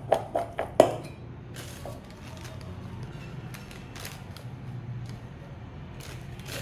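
Raw potato strips knocking against a stainless steel bowl as it is shaken, several sharp knocks in the first second. Then a softer rustle from a plastic bag as cornstarch is poured over the potatoes to coat them.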